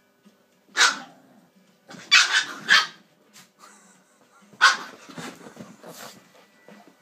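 Dog barking in short, sharp barks: one about a second in, three in quick succession between two and three seconds, and another just under five seconds, followed by fainter sounds.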